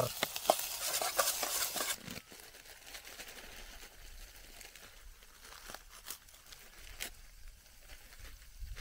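Tomatoes and peas sizzling in hot oil in a steel pot on a small gas camping stove, a steady hiss with a few clicks that cuts off about two seconds in. After that come faint crinkling and light clicks of something being handled.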